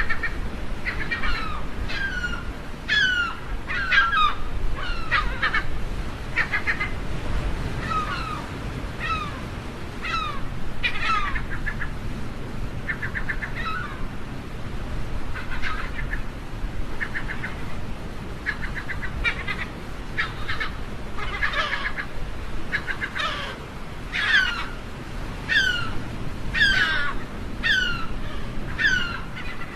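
Seagulls calling over and over, many downward-sliding cries overlapping, with quick runs of short repeated notes between them, over a steady low rumble.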